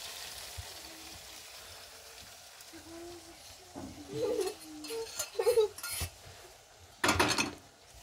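Beaten egg sizzling in a hot frying pan, the hiss fading over the first seconds. A metal bowl and utensils clatter against the pan and stove twice in the second half, the louder clatter about seven seconds in.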